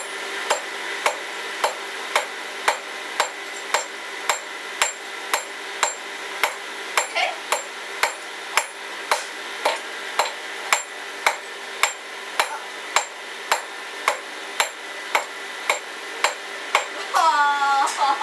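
Hand hammer striking hot iron on a blacksmith's anvil at a steady pace, about two blows a second, each a sharp metallic strike. Laughter near the end.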